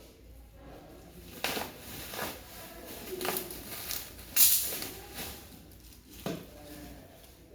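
Items and packaging being handled during an unboxing: scattered rustles and knocks at irregular intervals, the loudest about four and a half seconds in.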